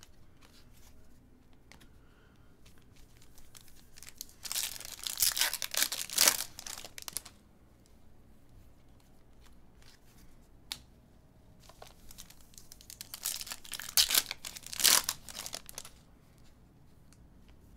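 Chrome baseball trading cards handled and slid against one another, giving two crinkling, rustling spells of two to three seconds each, with a single sharp click between them.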